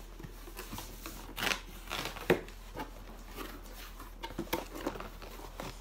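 A cardboard shipping box being opened by hand: packing tape pulled off and cardboard flaps scraping and knocking in short, irregular noises, with a sharp knock a little over two seconds in.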